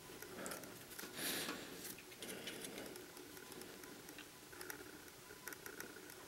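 Faint short hiss of an aerosol can of Seafoam Deep Creep penetrating lubricant sprayed through its straw, about a second in, followed by scattered light clicks and ticks.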